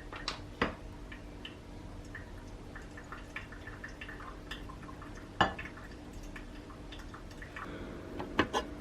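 Scattered light clicks, taps and clinks of kitchenware being handled, a few sharper knocks among them, over a steady low hum.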